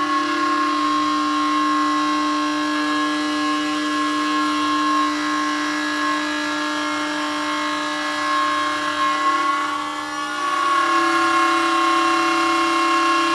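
CNC router spindle whining steadily at high speed as its bit cuts a wooden door panel. The pitch shifts slightly and the sound gets a little louder about ten seconds in.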